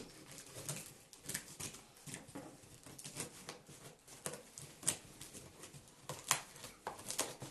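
Scissors snipping and cutting through packing tape on a cardboard box, with irregular small clicks and rustles of cardboard.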